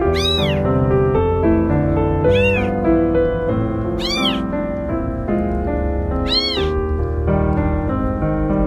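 Young kittens meowing: four short, high-pitched calls about two seconds apart, each rising then falling in pitch. These are the calls kittens make for their mother cat. Instrumental music plays steadily underneath.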